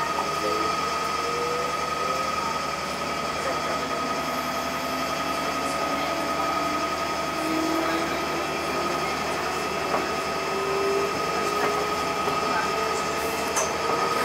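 JR Central 211 series 5000-subseries electric train pulling away from a station: the motor whine rises slowly in pitch as it picks up speed, over a steady high hum and the running noise of the wheels on the rails.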